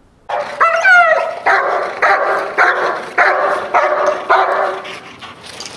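German Shepherd barking in a steady run of about two barks a second, opening with a high, falling yelp. It is guard barking at an approaching decoy while the dog holds its place beside its owner.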